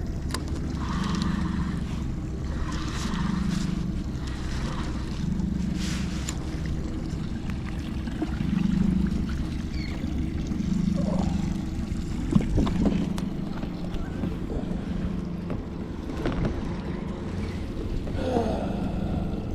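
Boat's motor running steadily with a low rumble that swells and fades about every two seconds.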